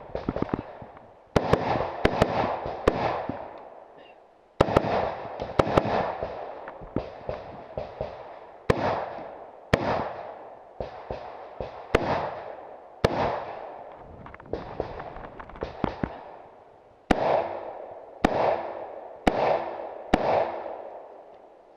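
Rifle fired in a string of about twenty shots, some spaced a second or more apart and some in quick pairs, with a few gaps of a second or two between groups. Each shot is followed by a long echo dying away.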